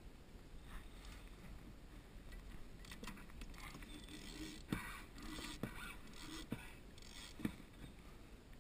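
Knocks, rattles and scraping of gear being handled aboard a kayak, with four sharp knocks about a second apart, over a low steady hum.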